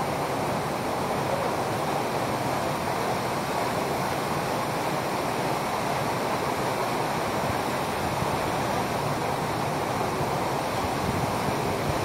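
Steady rush of a waterfall pouring into a rock pool.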